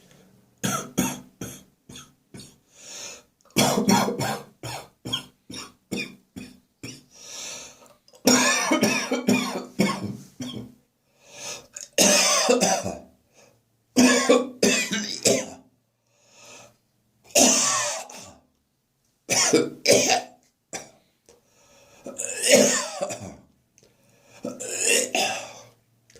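A person coughing and gagging in repeated bouts, short sharp coughs running into longer rough hacking spells with brief pauses between: a morning coughing fit after heavy beer drinking the night before.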